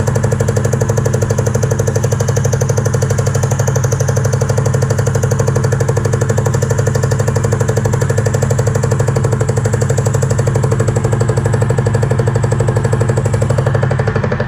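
Milling machine cutting a dovetail into a hardened steel tool holder with an insert dovetail cutter, making a loud, steady, rapidly pulsing chatter as the inserts bite on a finishing pass. The cut stops near the end.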